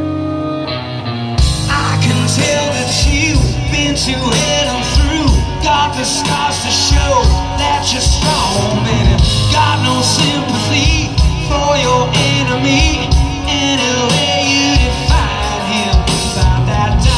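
Live hard rock band: electric guitar holding chords alone, then about a second and a half in the drums and full band come in, with a male singer's vocals over the top.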